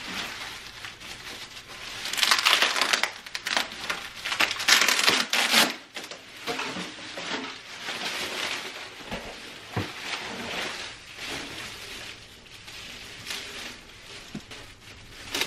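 Plastic packaging crinkling and rustling as it is pulled off a drum tom by hand. The loudest rustling comes in two bursts early in the first half, then softer handling follows.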